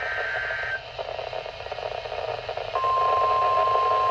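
NOAA Weather Radio broadcast of a severe thunderstorm warning. It opens with the end of a warbling digital SAME header burst, then about two seconds of static from weak reception. About three seconds in, the steady single-pitch 1050 Hz warning alarm tone begins.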